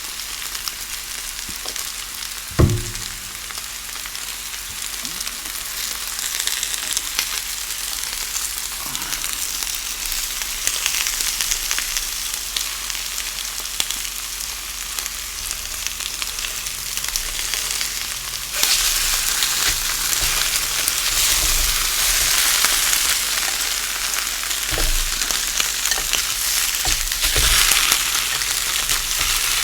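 Food frying in a pan with a steady sizzle, one sharp knock a few seconds in. The sizzle grows louder from about two-thirds of the way through, with a few dull knocks near the end.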